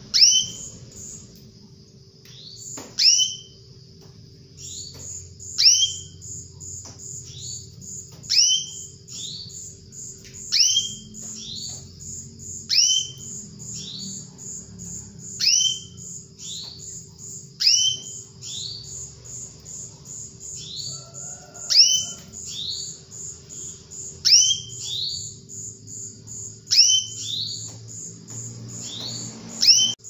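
Female canary calling for a male: short, loud down-slurred call notes repeated every one to two seconds. A fast, even high-pitched ticking runs behind them from about five seconds in.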